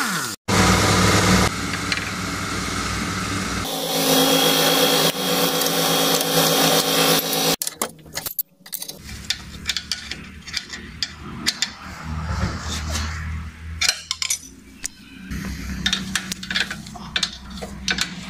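Cordless impact wrench hammering on a lower-arm suspension nut for about seven seconds, then stopping. Afterwards, scattered light metallic clinks of the socket, nut and tools being handled.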